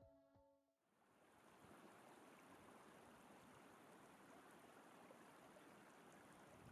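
Near silence: the last faint notes of music die away, then about a second in a very faint, steady rush like running stream water comes in and holds.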